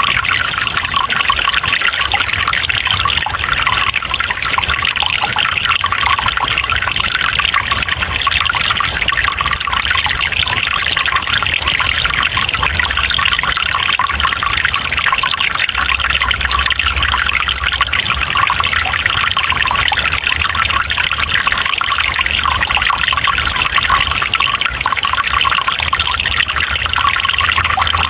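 Steady trickling and splashing of flowing water, a small forest stream running over rocks.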